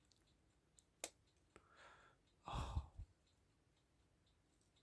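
Faint handling of a small clock movement: one sharp click about a second in as the tweezers and parts touch, then a breathy sigh around two and a half seconds in, ending in another small click.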